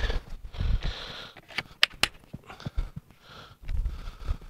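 A few sharp clicks and light knocks with faint rustling: a cordless power tool and its battery pack being handled.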